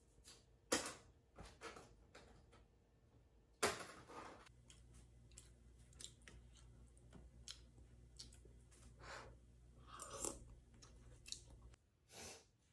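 Faint scattered clicks and knocks of small things being handled, over a low steady hum; two sharper knocks stand out, about a second in and just under four seconds in, and the hum stops near the end.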